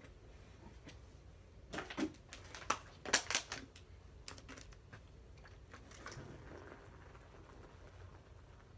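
A scattered run of sharp clicks and taps of objects being handled, bunched about two to four seconds in, then a quiet room.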